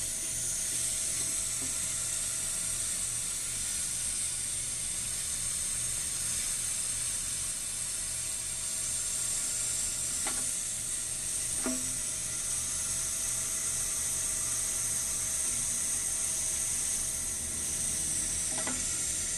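Older Kohler Highline toilet tank refilling: the fill valve hisses steadily as water runs into the tank.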